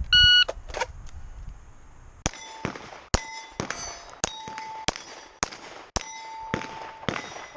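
An electronic shot timer beeps once at the start. About two seconds later a pistol fires a rapid string of shots, roughly one every half second, and steel target plates ring out when struck.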